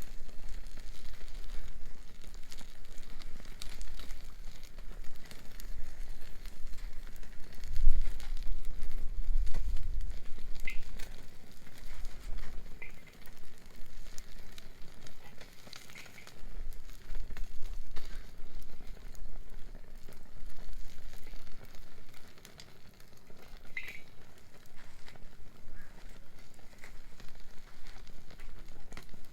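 Wood bonfire crackling with frequent small pops and snaps. A low rumble swells in and out twice, about a third of the way through and again past the middle.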